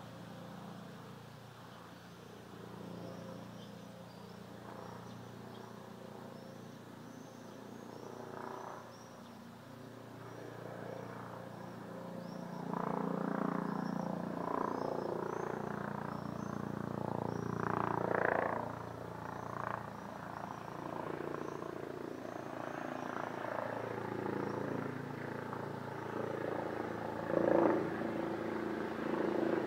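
Helicopter flying overhead, its rotor and engine noise growing louder about halfway through and swelling a couple of times, with high chirps repeating about twice a second throughout.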